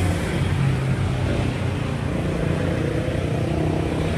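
Motor vehicle engine running steadily with a low hum, over the noise of road traffic.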